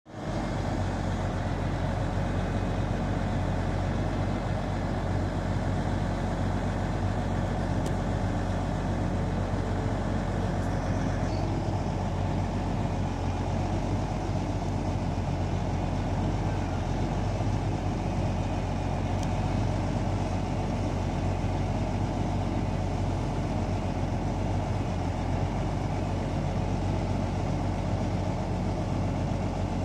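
Self-loading log truck's diesel engine idling steadily, a deep, even hum with no change in speed.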